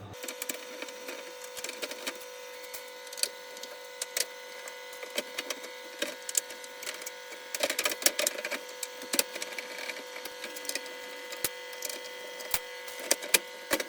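Induction hob's plastic fan duct being pried and forced apart: scattered cracking, creaking and clicking of plastic, busiest about eight seconds in and again near the end, over a faint steady whine.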